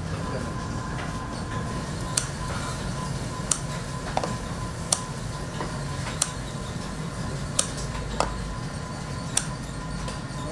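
Bakery kitchen work sounds: sharp clicks or taps about every second and a half over a steady low hum.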